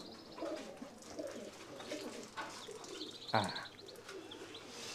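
Pigeons cooing quietly, with a short louder chirping bird call a little past three seconds in.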